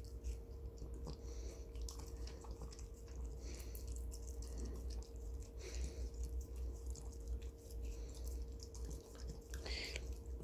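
A West Highland White Terrier chewing a strawberry, its mouth making faint, irregular clicks as it bites and chews.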